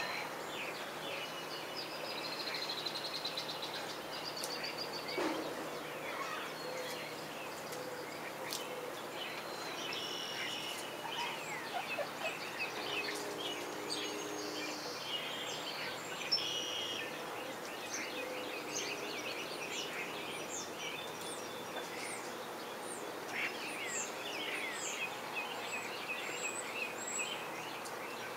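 Backyard chickens calling, with small birds chirping throughout and a short pitched fowl call about halfway through.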